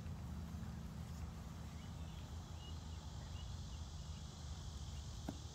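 Outdoor ambience: a steady low rumble of wind on the phone's microphone, with faint high bird chirps and one sharp click a little over five seconds in.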